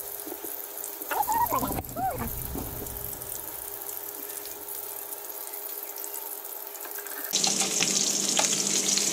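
Ladyfish patties frying in hot oil in a skillet, a steady hissing sizzle that turns suddenly louder and brighter about seven seconds in, as a spatula turns a patty.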